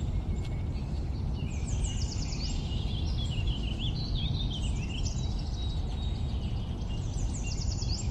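Birds singing over a steady low rumble: a quick run of high, falling notes about two seconds in and again near the end, with warbling calls in between.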